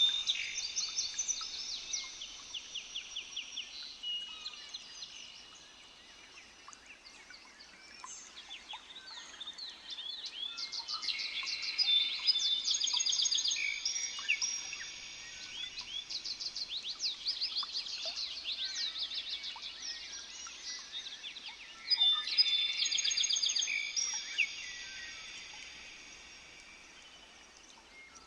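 Several songbirds singing at once, with rapid trilled and chirping phrases repeating over and over and swelling louder twice before fading.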